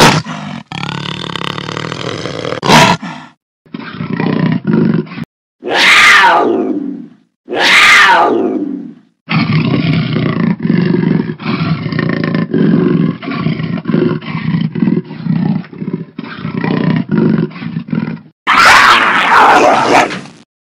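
Jaguar roars and grunts, short recordings joined with abrupt cuts: two loud roars that fall in pitch about six and eight seconds in, then a long run of low rhythmic grunts about two a second, and another roar near the end.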